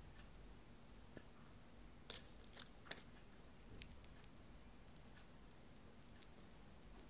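Small plastic building bricks of a Jie Star toy robot clicking and snapping together as fingers press pieces on. A quick cluster of sharp clicks comes about two to three seconds in, with a single click near four seconds and a few faint ticks otherwise.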